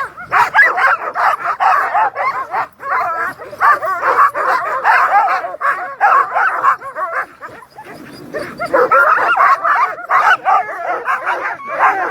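A team of Alaskan husky sled dogs barking, yipping and whining together in a continuous chorus, the eager clamour of dogs held at a race start line and straining to go. The din eases briefly about two-thirds of the way through, then builds again.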